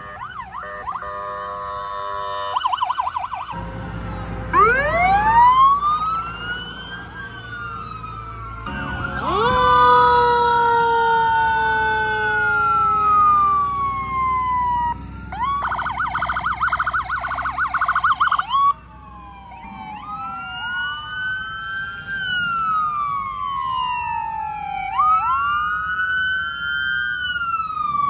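Sirens of several emergency vehicles sounding together: overlapping wails rising and falling in pitch, with a fast yelp for a couple of seconds just past the middle, over a low engine rumble.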